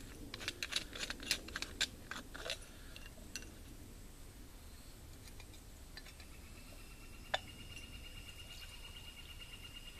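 Rapid metallic clicks and clinks of a canteen and metal cup being handled for the first two and a half seconds, then a single sharp click about seven seconds in. From about six seconds an insect trills steadily with a fine, fast pulse.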